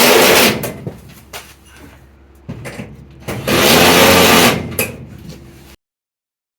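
Handheld power drill/driver running in two bursts: a short one at the start and a longer one about three seconds in that speeds up and slows down. Light clicks and knocks come in between.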